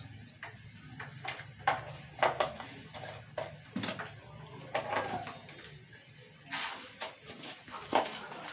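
Scattered light knocks and clinks of kitchen utensils and spice containers handled beside a steel mixing bowl, with a brief noisier burst about six and a half seconds in.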